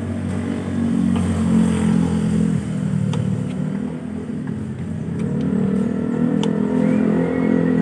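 A motor vehicle engine runs steadily with a slightly uneven pitch, its revs rising somewhat in the second half. A few light clicks sound over it.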